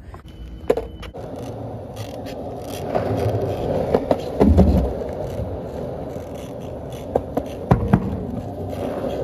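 Skateboard wheels rolling over the deck of a floating dock, a steady rumble that builds after about a second. A few sharp knocks come through it, one with a low thump about halfway through and two more near the end.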